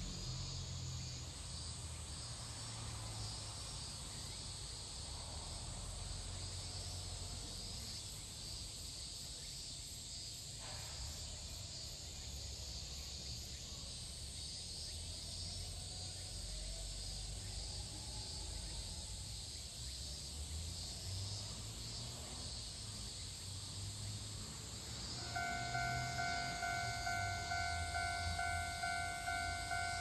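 Steady chorus of insects, then about 25 seconds in a Japanese railway level-crossing alarm starts ringing: a repeating electronic ding about twice a second, warning that a train is approaching.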